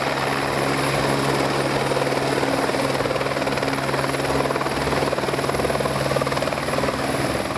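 Police turbine helicopter touching down and sitting on its skids with the main rotor still turning: a steady rapid rotor thrum over a constant engine hum.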